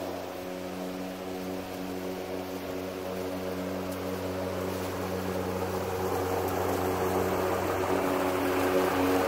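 Hart 40-volt brushless cordless electric lawn mower running as it cuts grass, a steady even-pitched motor and blade hum over a light grassy rustle. It grows gradually louder as the mower comes closer.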